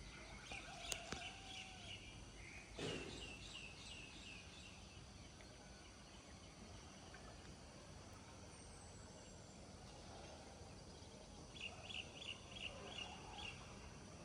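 Quiet rural morning ambience with faint bird calls: short runs of rapid high chirps, the clearest a run of about seven near the end. A soft knock about three seconds in.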